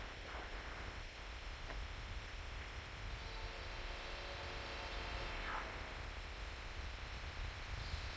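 Faint, distant train horn sounding from about three seconds in over a low steady rumble and hiss: the approaching Union Pacific passenger special blowing for the crossing.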